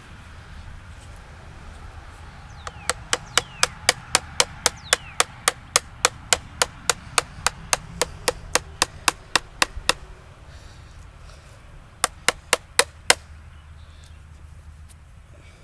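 Mallet driving a wood chisel into a log: a fast run of sharp strikes, about four a second for some seven seconds, then after a pause a shorter run of five.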